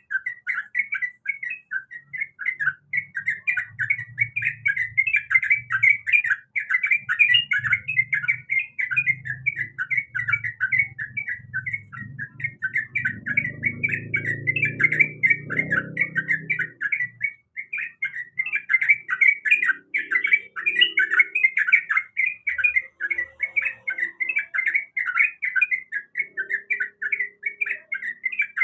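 Sooty-headed bulbul (trucukan) calling in a fast, unbroken stream of short chirping notes, with a low rumble underneath in the first half.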